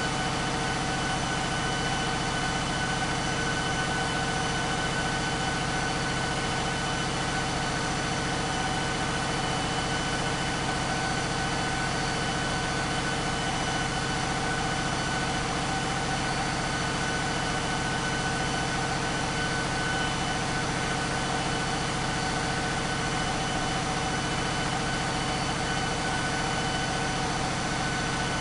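Caterpillar 3516B V16 diesel engine running on an engine dynamometer, holding a steady, unchanging note.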